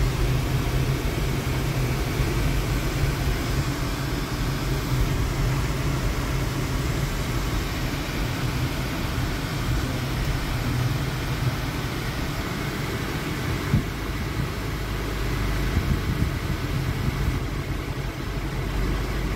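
Road noise inside a moving Subaru's cabin: a steady low rumble of engine and tyres with an even hiss over it. One brief tap about two-thirds of the way through.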